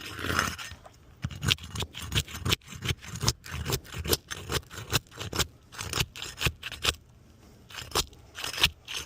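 A pry bar scraping under CertainTeed Patriot asphalt shingle tabs in quick repeated strokes, about two or three a second, working the stuck shingles loose; the strokes pause briefly and start again near the end.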